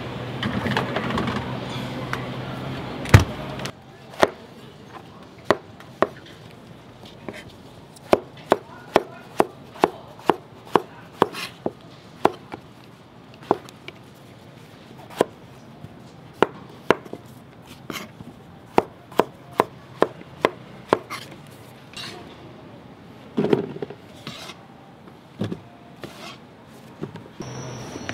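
Knife chopping on a wooden cutting board: sharp, irregular chops, often in runs of about two to three a second, with one louder knock about three seconds in.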